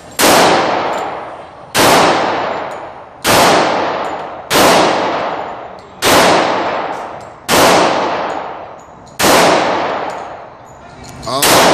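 Glock 21 .45 ACP pistol fired eight times in slow, steady succession, about one shot every one and a half seconds, each crack followed by a long echoing decay.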